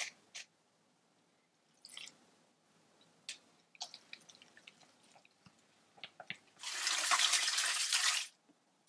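Chopsticks stirring minced-meat sausage filling in a glass bowl, with light clicks and scrapes. Near the end, a kitchen tap runs for about a second and a half, rinsing sausage casings.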